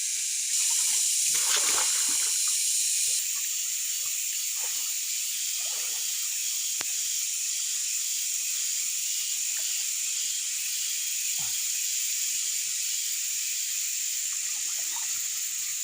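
Steady high-pitched hiss, louder for a few seconds near the start, with a few faint knocks.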